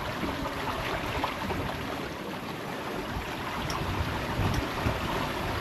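Wind and rushing water around a sailboat under way at sea, with low wind rumble buffeting the microphone.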